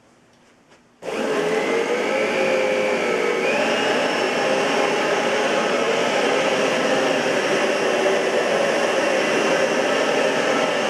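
Oreck XL21 bagged upright vacuum cleaner switched on about a second in: its motor starts abruptly, the whine rises in pitch as it spins up over the next couple of seconds, then runs loud and steady.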